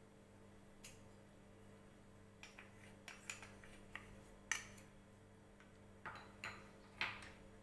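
Scattered light clicks and taps of a plastic spoon against a glass bowl while cornflour is spooned onto grated paneer, about nine in all, the sharpest about halfway through and near the end, over a faint steady low hum.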